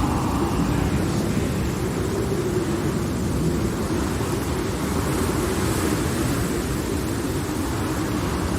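Low, steady rumble of thunderstorm ambience, like distant rolling thunder, with a faint hiss above it.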